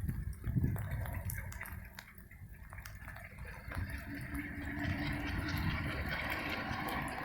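Diesel freight train rumbling low, with a hiss of train noise building through the second half. No horn is sounding.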